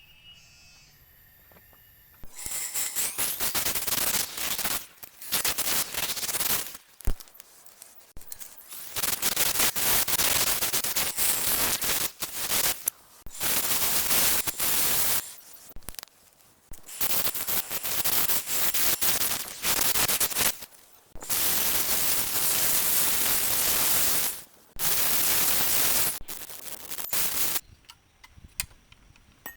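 Turning tool cutting wood on a lathe: a rough, crackling scrape in repeated passes of a few seconds each, with short pauses between them.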